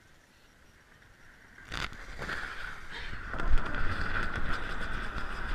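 Snow tube sliding off over packed snow: after a near-silent start there is a knock, then a scraping hiss that grows louder.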